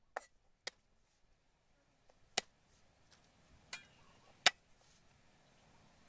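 Steel cleaver striking a wooden chopping board in a few separate, irregular chops, about five sharp knocks with the loudest past the middle.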